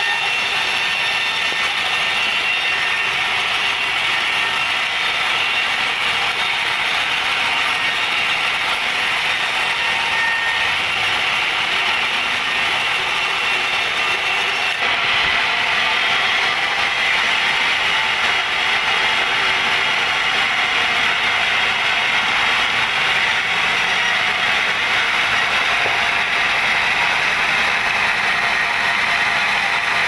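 Band sawmill's blade running and cutting lengthwise through a large teak log, a steady high-pitched mechanical noise whose tone shifts about halfway through.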